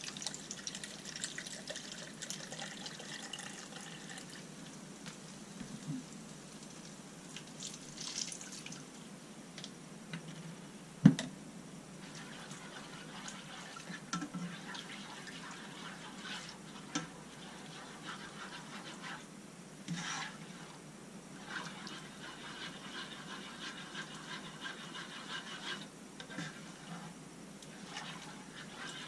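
Chicken broth pouring from a carton into a plastic measuring jug and then into a skillet of flour-and-butter roux, which is stirred with a spoon as it cooks, with small scraping clicks. One sharp knock about eleven seconds in.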